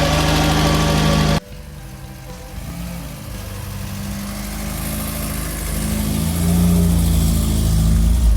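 1.8-litre VW Golf Mk1 engine idling. After an abrupt cut about a second and a half in, the car is under way, its engine note rising and growing louder toward the end.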